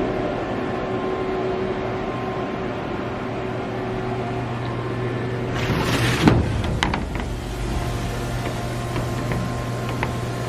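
Steady electrical and fan hum of a powered-up, idle Haas VF-2SS CNC vertical machining center, with a short hiss about six seconds in followed by a few light clicks.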